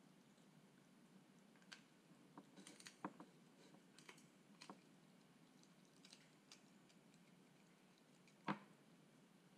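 Scattered faint clicks and crunches from a toy poodle chewing a raw duck foot and moving about on a tiled floor, with one louder knock near the end.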